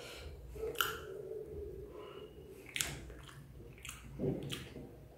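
A person chewing a mouthful of chow mein noodles close to the microphone, with a few sharp wet mouth clicks and smacks.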